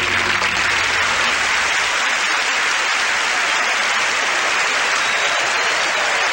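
Audience applauding steadily as the last notes of a song die away in the first second or two.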